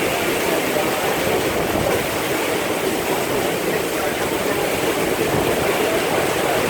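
Heavy rain falling in a steady, loud hiss with no letup.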